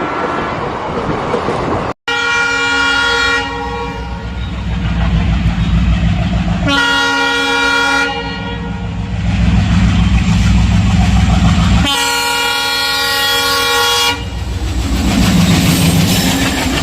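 Locomotive air horn of a passing Indian Railways train sounding three steady blasts, the third the longest at about two seconds. The low rumble and wheel clatter of the train run beneath.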